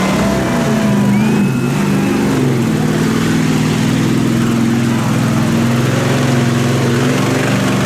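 Engine of a side-by-side UTV running at high revs as it powers through a deep mud hole, holding a steady drone with small shifts in pitch.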